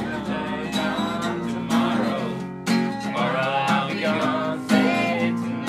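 Acoustic guitar strummed in a steady song, chords struck about every second or so.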